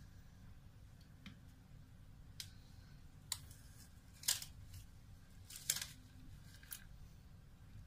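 Low steady hum with about six small, sharp clicks or taps spaced irregularly, the loudest two about four and six seconds in.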